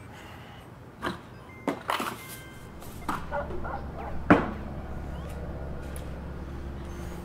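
Knocks and clatter of household things being handled on a kitchen counter, the loudest a sharp knock about four seconds in. A low steady hum sets in about three seconds in.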